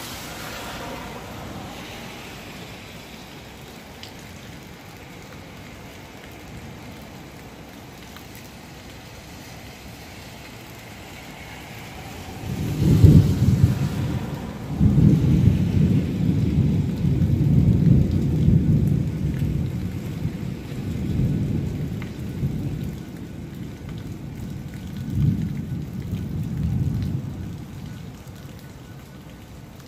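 Steady rain, then about twelve seconds in a long roll of thunder breaks in sharply: a loud, low rumble that surges several times over some fifteen seconds before fading back under the rain.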